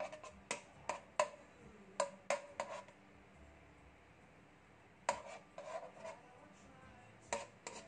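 A metal spoon clinking and scraping against a nonstick wok while stirring melting margarine: irregular sharp taps in two bursts, with a pause of about two seconds in the middle.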